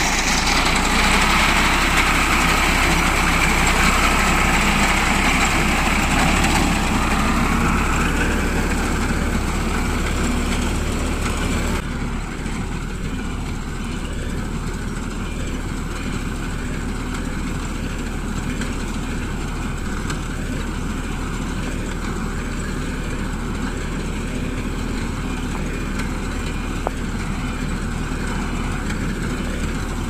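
Diesel tractor engine running steadily while its mounted reaper cuts wheat. The sound changes abruptly about twelve seconds in, dropping a little in level and losing a bright, noisy upper layer.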